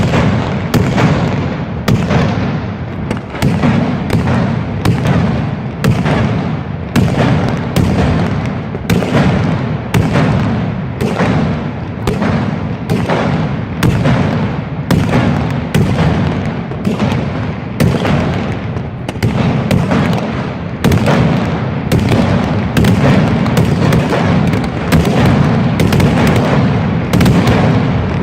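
Fireworks display: a loud, continuous barrage of exploding shells, about one to two sharp bangs a second over a steady low rumble of booms.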